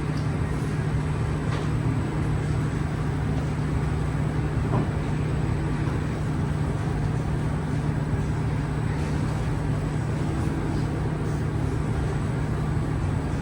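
Steady low hum and rushing air noise inside a stationary Kawasaki–CRRC Qingdao Sifang T251 metro car while it dwells at a station, with a few faint ticks.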